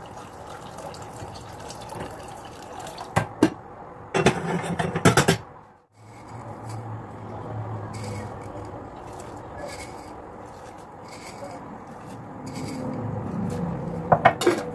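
Stainless-steel pot lid being handled, with a short burst of metal clatter, then dried beans poured from a glass jar into a pot of sauce, ending with a few sharp clinks.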